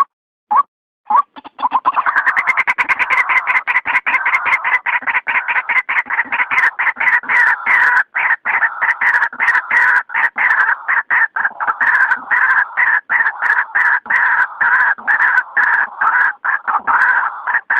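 White-breasted waterhen calls from a bird-luring recording: a few separate short notes about two a second, then from about a second in a dense, rapid, unbroken run of repeated calls.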